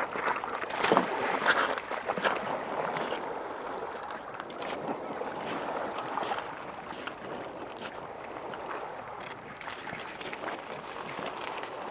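Cavalier King Charles Spaniel splashing through shallow sea water at a pebble beach, loudest in the first couple of seconds, then a steady wash of water with scattered clicks of pebbles as it hauls a big branch ashore.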